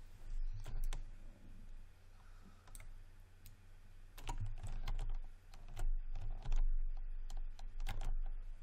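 Computer keyboard keys and mouse buttons clicking, scattered single taps at irregular intervals, over a low steady hum.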